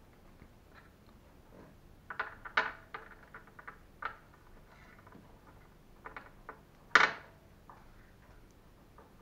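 Small plastic and metal clicks and taps from handling Traxxas Revo 3.3 ball-joint parts and hardware: a quick flurry of clicks about two seconds in, a few more around four and six seconds, and one loud, sharp click about seven seconds in.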